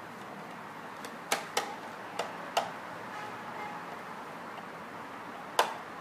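A few sharp, short clicks: four or five between one and three seconds in and a louder one near the end, from a screwdriver tightening the mounting screws of a smart lock, over a steady faint hiss.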